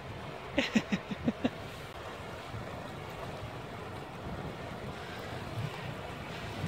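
Small waves lapping and breaking on a sandy lake shore, with wind on the microphone. About half a second to a second and a half in, a quick run of short pitched sounds.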